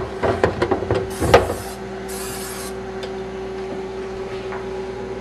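Cooking spray from an aerosol can, two short hisses about a second apart, after a few knocks and clatters of handling things on the counter. A steady low hum runs underneath.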